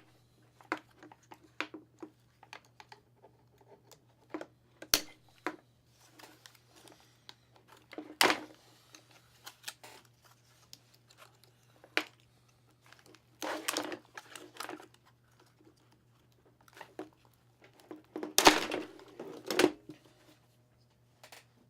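Bar-clamp retail packaging being cut open and pulled apart: scattered sharp snips and clicks with louder bursts of plastic and cardboard crinkling and tearing.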